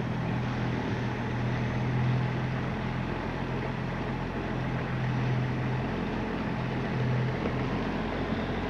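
Nissan Patrol's engine running with a steady low hum, heard from inside the cabin as the 4x4 drives slowly through floodwater covering the road, with a rough wash of water and tyre noise underneath.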